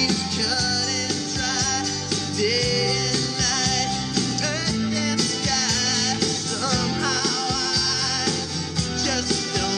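A song with a singer and instruments playing through a 2017 Harley-Davidson's fairing speakers, aftermarket Infinity replacements, with the volume turned up.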